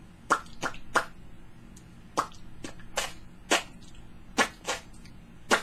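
Comic fart noises: about ten short, sharp pops in an uneven rhythm, tapped out as a tune.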